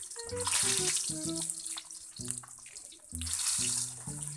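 Hotdogs sizzling as they are dropped into hot oil in a frying pan: a burst of hissing about half a second in and another about three seconds in, each dying down within a second. Background music with a stepping melody plays throughout.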